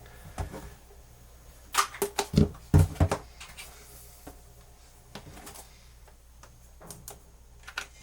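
Plastic clicks and knocks from a portable cassette player being handled and its controls worked, with a quick cluster of sharp knocks about two to three seconds in and scattered lighter clicks around them.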